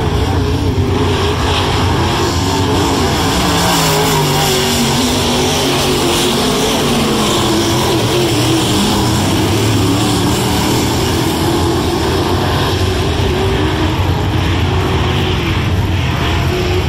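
Several dirt track race cars' engines running hard around the track, loud and continuous, their pitch rising and falling again and again as the drivers get on and off the throttle through the turns.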